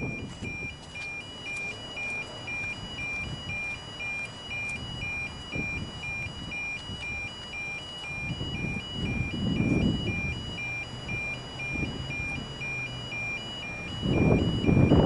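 Level crossing warning bell: an electronic two-tone alarm alternating high and low about twice a second. Under it a low rumbling noise swells now and then and grows louder near the end.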